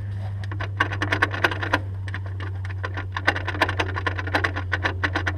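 Rapid, irregular clicking from a Honda S2000 propeller shaft being worked by hand, starting about half a second in. The clicking comes from play in the worn-out shaft. A steady low hum sits underneath.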